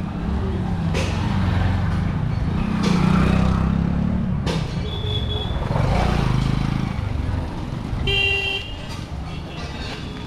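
A motorcycle engine runs close by and passes, swelling twice, against light street traffic. A vehicle horn toots once briefly about eight seconds in.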